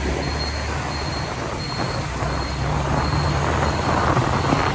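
Motorcycle riding along, its engine a steady low drone under dense wind rush on the microphone.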